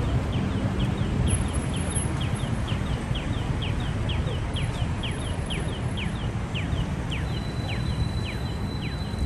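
Short high chirps, each falling quickly in pitch, repeating evenly about three times a second over the steady low rumble of city street noise.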